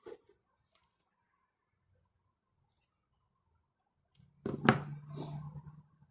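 Eating utensils clicking softly against a bowl, then a louder knock and clatter about four and a half seconds in that lasts about a second and a half.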